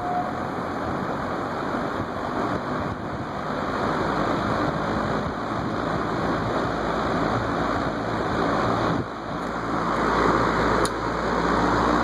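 Vintage Korvettes (Frigid) box fan running: a steady whoosh of moving air with a little motor buzz. About nine seconds in the sound dips briefly, then carries on louder.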